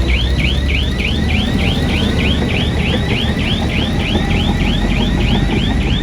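A heavy construction machine's warning alarm: a rapid, repeating sweeping tone at about four sweeps a second, over the steady low rumble of a diesel engine.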